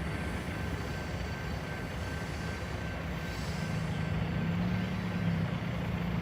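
Diesel freight locomotives running with a steady low rumble.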